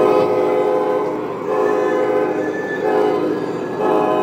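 Model train's diesel-style horn sounding a series of about four blasts of roughly a second each, several tones together like a multi-chime air horn.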